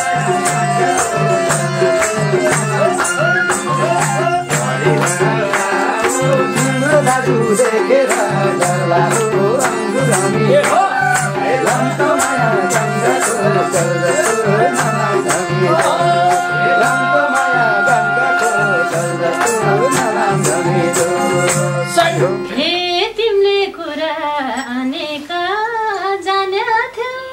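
Nepali folk band playing an instrumental interlude: harmonium holding chords under a melody line, with a hand drum and a shaker keeping a fast, even beat. About 22 seconds in the band stops and a woman starts singing alone.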